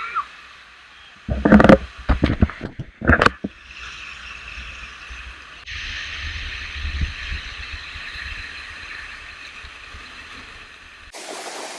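Steady rush of falling water and spray from a waterfall close by, broken by a few loud sudden sounds in the first three seconds. Near the end the rush turns abruptly brighter and fuller.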